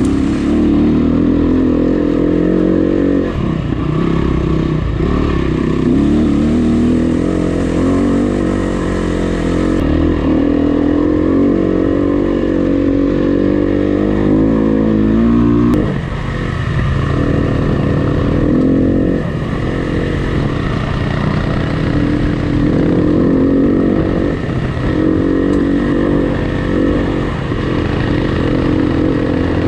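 Dirt bike engine being ridden hard, revving up and down continuously. The throttle closes briefly several times along the way.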